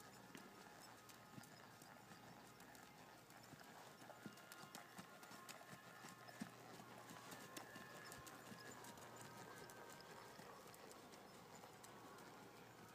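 Faint, irregular hoofbeats of a Quarter Horse gelding walking under saddle on the soft sand footing of an arena.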